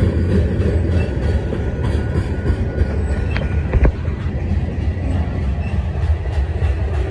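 Freight train of covered hopper cars rolling past: a steady, loud rumble of steel wheels on the rails, with a sharp clank a little under four seconds in.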